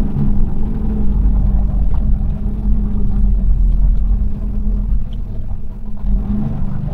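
Semi truck's diesel engine and road noise inside the cab while driving: a steady low rumble with a constant hum.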